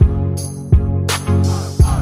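Background music: a beat-driven track with a heavy bass line and regular drum hits.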